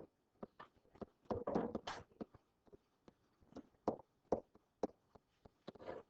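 Irregular light taps and knocks, some close together, with a brief rustle about a second and a half in.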